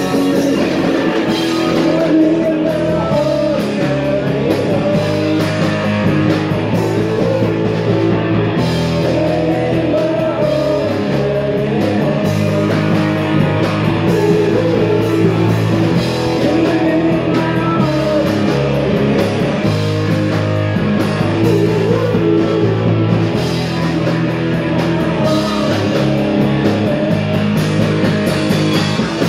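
Live punk rock band playing loudly: electric guitars and drums, with a voice singing.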